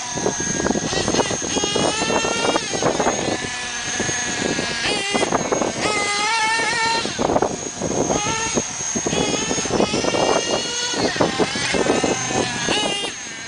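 Small, high-revving motor of a radio-controlled model, its pitch rising and falling again and again as the throttle is worked, with a thin high whine held steady above it.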